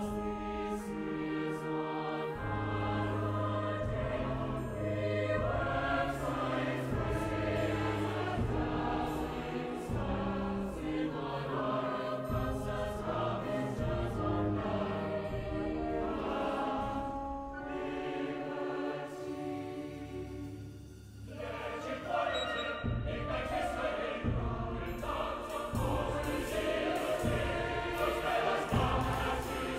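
Large mixed choir singing words with a symphony orchestra in a contemporary choral work. The music eases briefly about two-thirds of the way through, then comes back louder toward the end.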